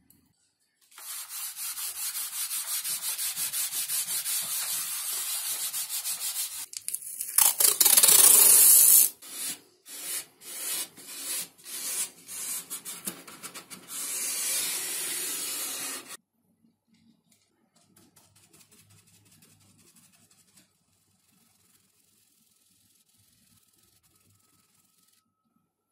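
Cloth and fingers rubbing over the surface of a foam RC plane wing: a steady scratchy rub for several seconds, a much louder rush about seven seconds in, then a run of short rubbing strokes that stops about sixteen seconds in, leaving only faint dabbing.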